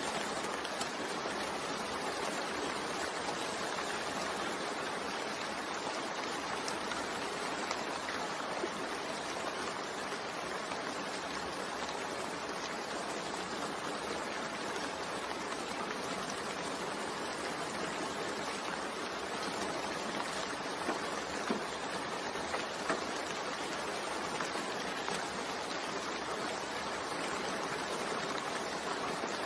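Steady rain: an even hiss of falling rain, with a few louder single drop ticks about two-thirds of the way through.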